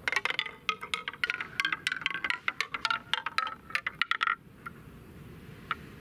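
A ball tumbling down a painted wooden spiral marble-run tree, clacking from leaf to leaf in a fast, ringing run of pitched wooden knocks for about four seconds. A couple of last taps follow as it rolls into the wooden base tray.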